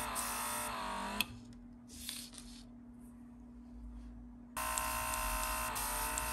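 Small cordless airbrush compressor running with a steady buzzing whine, with air hissing from the airbrush. It drops away about a second in and comes back about three seconds later.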